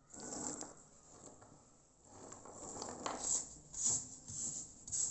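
Irregular rustling and light rattling handling noise in short bursts, one at the start and several more, closer together, in the second half.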